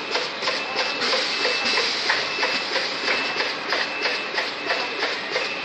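High-speed pillow-type flow-wrap packaging machine running, packing stacks of plastic cups: a steady rhythmic mechanical clatter of about three clacks a second, with a thin high tone coming and going.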